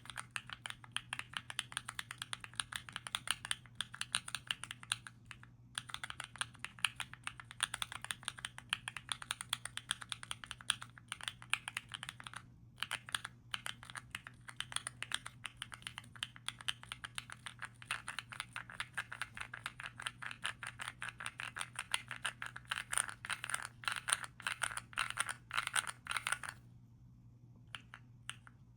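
Rapid, continuous typing on Epomaker Zebra mechanical keyboard switches on a small keypad, many creamy keystrokes a second. The typing stops briefly near the end, then a few scattered keystrokes follow. A faint steady low hum sits underneath.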